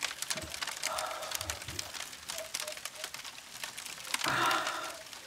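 Eating sounds: a fork stirring and twirling noodles in a bowl, with many small clicks and mouth noises of eating.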